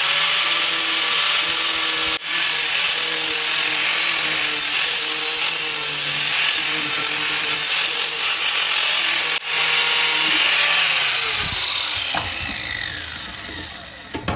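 Power tool fitted with an 80-grit flap wheel, grinding the steel head of a chisel to round it off. It runs steadily with a constant whine, cutting out for a moment twice. In the last few seconds the motor spins down, its pitch falling.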